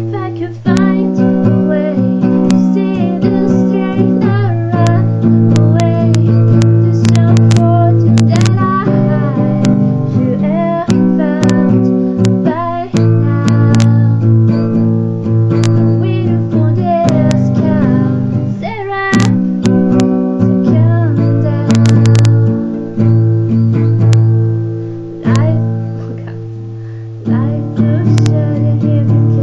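Acoustic guitar strumming chords, with the chords changing every second or two.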